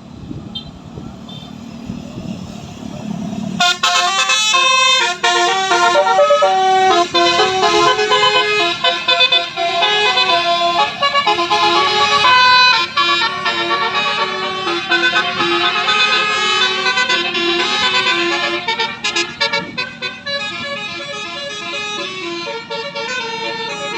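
Telolet basuri bus horn, a set of multi-tone air horns, playing a quick tune of stepping notes. It starts about four seconds in, after a low rumble, and keeps going.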